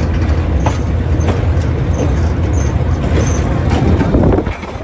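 DJ class diesel-electric locomotive running under way, heard from its open outside walkway: a steady loud low rumble from the engine and running gear, with short clicks from the wheels on the track. The level falls a little near the end.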